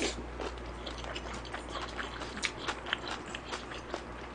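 Close-miked chewing of a mouthful of ganjjajang rice with diced vegetables: a run of small wet smacks and light crunches.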